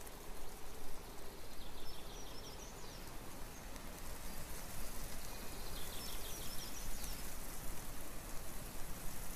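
Steady outdoor background hiss, with a small bird giving a short, high call twice, about four seconds apart.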